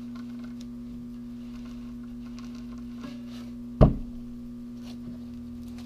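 Steady electrical hum, one main tone with a lower one beneath it, from the hot-wire foam cutter's 12.6 V transformer while it powers the 26-gauge nichrome wire. A single sharp knock about four seconds in.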